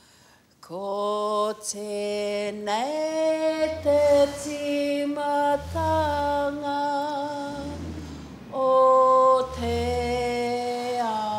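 A voice sings long held notes, stepping from pitch to pitch, and is loudest just before the ninth second. From about three and a half seconds in, a pōrotiti (a Māori disc spun on a twisted cord) whirs under it in low pulses about every two seconds, each rising and then falling in pitch as the cord winds and unwinds.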